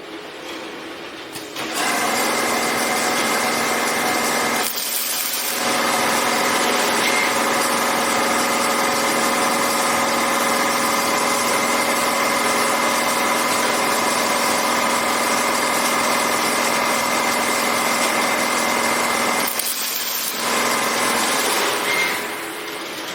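Automated rebar cage welding machine running: steady mechanical noise with a high whine, starting about two seconds in, dipping briefly twice and easing off near the end.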